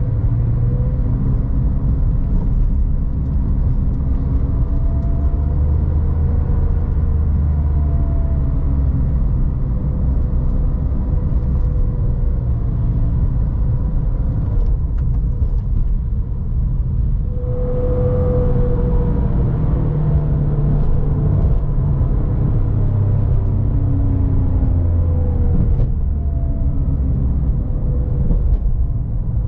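Porsche 911 GT3 RS 997.1's 3.6-litre Metzger flat-six engine running through city driving, heard from the passenger seat. The engine note rises and falls as the revs change, dipping briefly and picking up again about halfway through.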